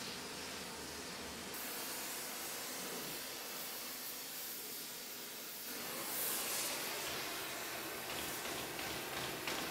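Oxy-fuel gas torch burning with a steady hiss as it heats steel bar. Quick light taps begin near the end.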